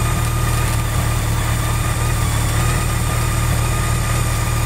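1986 BMW K100's one-litre, four-cylinder engine idling steadily on the stand.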